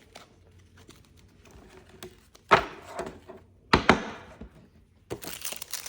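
A stack of trading cards knocked against a table to square it up: two sharp thunks about a second apart. Near the end a card-pack wrapper starts crinkling.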